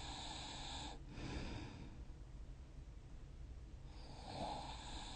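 Sleeping person snoring: a breathy hiss that ends about a second in, a short low rumble just after it, then another heavy breath beginning about four seconds in.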